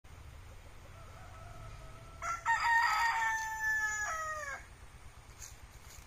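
Rooster crowing: one long crow starts about two seconds in, lasts over two seconds and drops in pitch at the end. A faint, thin call is heard before it.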